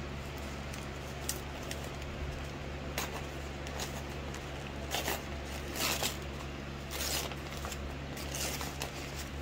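Paper wrapping and tape being handled and pulled open: short bursts of rustling and crinkling, about eight of them, over a steady low hum.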